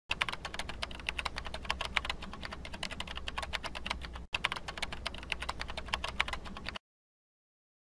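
Computer-keyboard typing sound effect: a rapid, continuous run of key clicks that briefly breaks off about halfway and then cuts off abruptly near the end.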